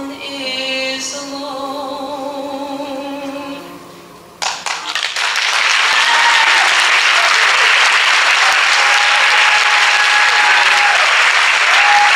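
A woman sings the last held note of a song with vibrato over piano, fading out about four seconds in. The audience then breaks into loud applause with a few cheers.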